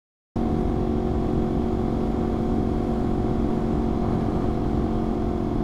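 Yamaha R1 inline-four engine running at a steady cruise, a constant note with no revving, under heavy wind and road noise. The sound starts abruptly about a third of a second in, after a short dropout of silence.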